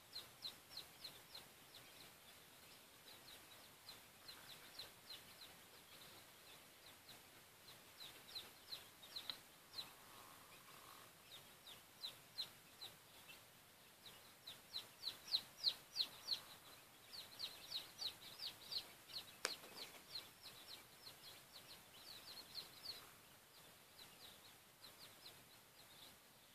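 A brood of chicks peeping: many short, high, falling peeps in quick runs, busiest and loudest in the middle, with one sharp click about two-thirds through.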